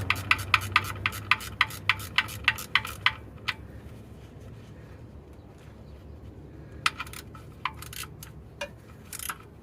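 Ratcheting wrench clicking about four times a second while tightening the engine oil drain plug, stopping about three seconds in; a few scattered metal clicks follow.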